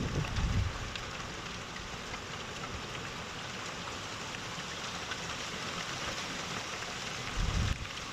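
Heavy rain and hail pouring down steadily in a thunderstorm, a dense hiss with faint scattered ticks. A brief low rumble comes near the end.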